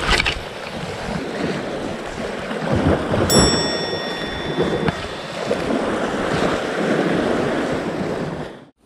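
Sea washing against a rocky shore with wind gusting on the microphone, a steady noisy rush that cuts off just before the end. A brief high ringing tone sounds about three seconds in.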